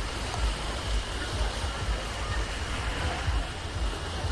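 Busy beach ambience: a steady wash of surf with indistinct voices of many people in the background, and wind rumbling on the microphone.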